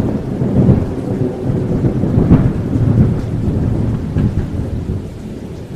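Rumbling thunder over steady rain, easing off slightly near the end.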